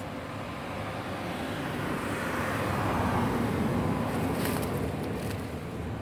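A vehicle passing by: a rushing noise that swells to a peak about three seconds in and then fades away.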